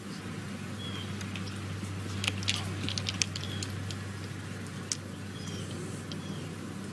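Outdoor golf-course ambience: a steady low hum with occasional short bird chirps, and a few scattered sharp clicks about two to three seconds in.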